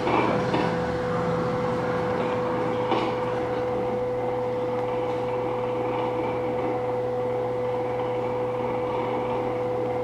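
A steady drone: one held tone with a low hum beneath it, over a noisy hiss, unchanging throughout.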